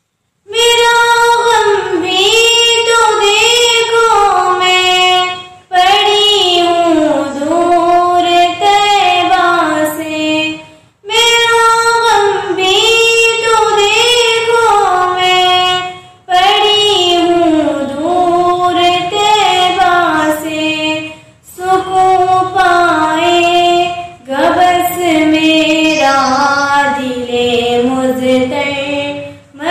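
A girl singing a naat solo and unaccompanied, in melodic phrases of about five seconds, each broken by a short pause for breath.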